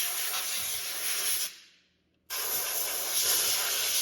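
Compressed air from an air compressor's blow nozzle hissing in two blasts while blowing dust out of a graphics card: the first dies away about a second and a half in, and after a short pause the second starts abruptly and runs on.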